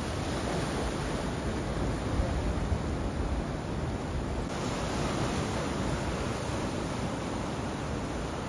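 Ocean surf: waves breaking and washing up over sand and around rocks in a steady rush.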